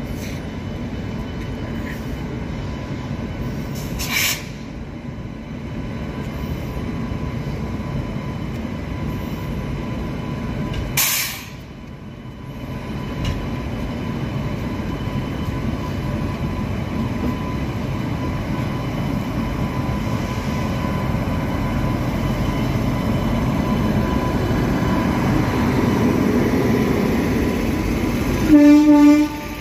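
A WAP-7 electric locomotive hauling an express train rolls in toward the platform, its rumble growing steadily louder as it draws near. There are two short hissing noises at about four and eleven seconds in. Near the end, as the locomotive passes close, it sounds one short, loud horn blast.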